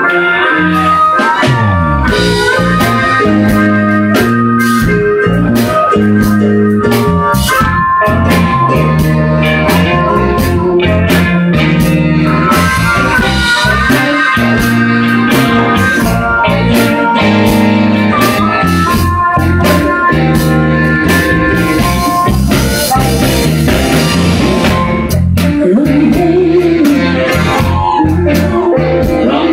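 Live electric blues band playing, with harmonica leading over electric guitar, bass guitar and drum kit.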